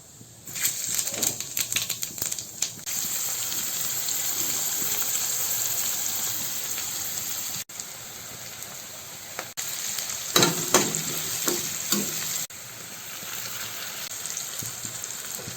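Food sizzling and crackling in hot oil in a pan, with a steady hiss and, about two-thirds of the way through, a spell of louder clattering as it is stirred with a spoon or spatula.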